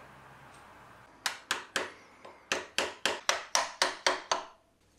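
Screwdriver blades tapped in behind a Nissan RB30's steel crank timing gear: about eleven light metal-on-metal taps, about four a second, starting a second in, each with a short ring. The taps ease the gear off evenly, since it is binding on a rusty crank snout.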